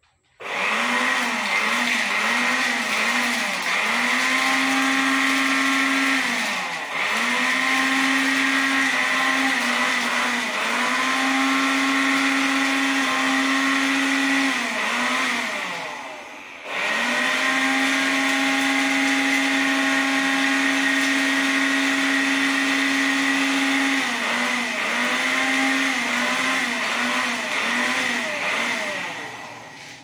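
Homemade plastic-bottle vacuum cleaner's electric motor switching on and running with a high whine while it sucks up scattered seeds. Its pitch wavers up and down throughout. It drops out briefly twice, about a quarter and about half way through, and stops near the end.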